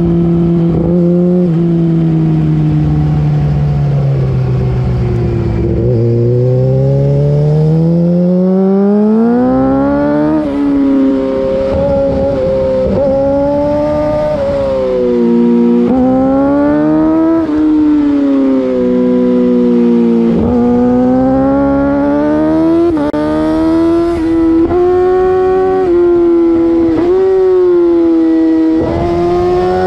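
2008 Yamaha R6's inline-four with an Akrapovic full race exhaust, heard from the rider's seat, revving up and down through a run of corners. The revs fall slowly for the first several seconds, then climb and drop again and again, with several sudden breaks.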